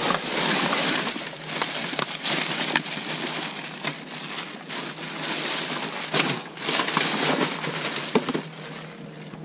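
Black plastic rubbish bags rustling and crinkling as gloved hands rummage through rubbish, with small clicks and knocks from packaging being moved, quieter near the end.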